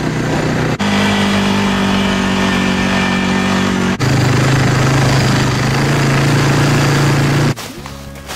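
ATV engine running steadily while riding, its pitch jumping suddenly about one second and four seconds in. Near the end the engine sound cuts off and it turns much quieter.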